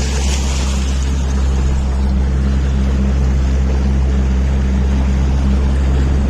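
Motorboat engine running steadily under way, a constant low hum, with water and wind noise over it.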